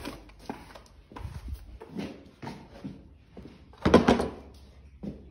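Grooming brush scrubbing over a shedding horse's coat in a string of short, scratchy strokes. About four seconds in comes a single louder scuff and knock.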